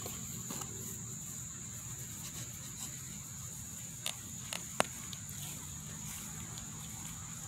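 Steady high-pitched insect chorus, with a few sharp clicks about four to five seconds in, the last one the loudest.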